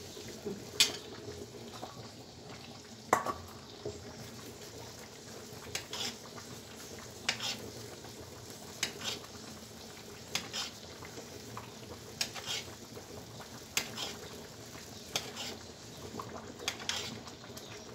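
A metal spoon tapping and scraping against an aluminium baking tray about every second and a half, as syrup is spread over bread dessert (ekmek tatlısı). Under the taps, a steady soft sizzle of the syrup heating in the tray on the burner.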